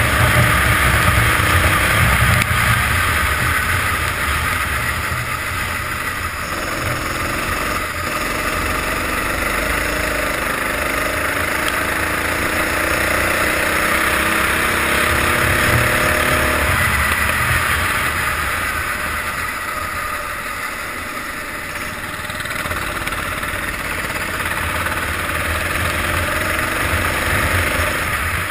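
Sodi racing kart's engine heard from on board, revving up through the gears on the straight, dropping in pitch as the throttle lifts about seventeen seconds in, then pulling up again through the corners. A steady hiss runs underneath.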